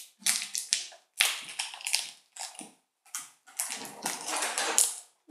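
Crinkly plastic wrapper crackling and rustling in a string of bursts as it is torn open by hand and teeth.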